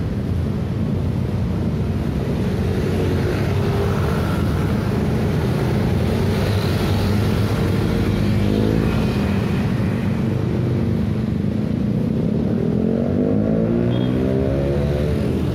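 Busy city-street traffic: a steady stream of motor scooters and cars passing close by with a continuous engine and tyre hum. Engine notes sweep up and down in pitch as vehicles go past, most strongly a little past halfway and again near the end.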